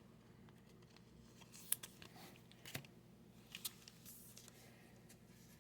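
Near silence, broken by a few faint clicks and soft rustles of trading cards and a plastic penny sleeve being handled, three clicks about a second apart near the middle.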